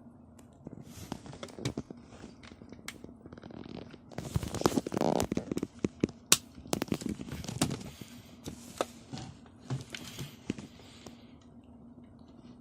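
Handling noise from an alarm clock being picked up and worked by hand: irregular clicks, knocks and rustling, busiest around four to six seconds in.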